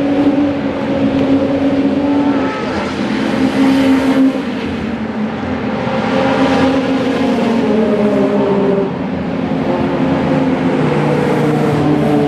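Racing cars' engines at full throttle as several cars pass one after another, their notes overlapping with no gap between cars. The pitches rise and fall as each car approaches, shifts gear and goes by.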